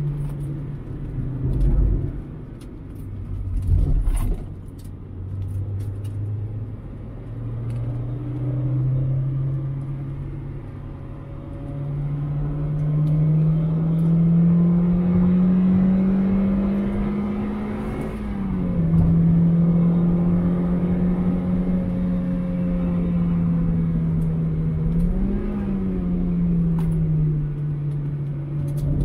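A 2001 Mazda MX-5's 1.8-litre four-cylinder engine, heard from inside the car, working through a lap. Its pitch falls as it slows, with two thumps about two and four seconds in. It then climbs steadily for several seconds under acceleration, drops sharply at an upshift about two-thirds through, and holds steady with a brief blip near the end.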